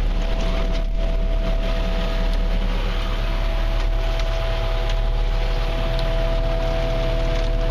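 JCB 57C-1 mini excavator's diesel engine running at a steady speed.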